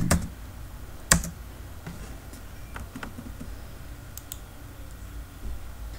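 Computer keyboard and mouse clicks: one sharp click about a second in, then several fainter scattered clicks.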